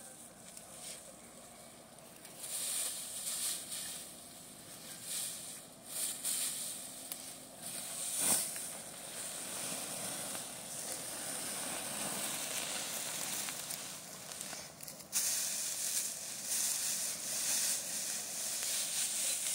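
Dry cut grain stalks rustling and crackling as they are gathered up by hand in armfuls.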